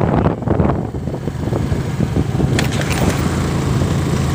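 Motorcycle engine running steadily at cruising speed, with a constant rush of road and wind noise.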